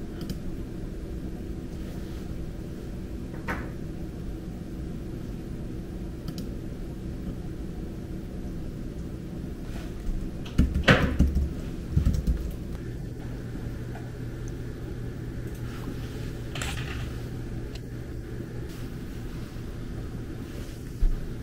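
Steady low hum of an office room, with a faint click and a cluster of dull thumps about eleven seconds in, and one more thump near the end.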